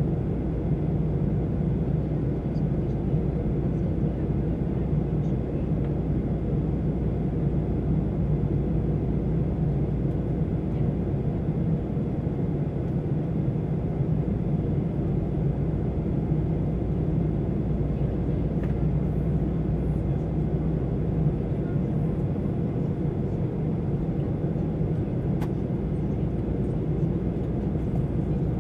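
Steady low drone inside the cabin of a Boeing 737-800 in flight, made by its CFM56-7B turbofan engines and the airflow over the fuselage. The drone holds even, with a few faint ticks near the end.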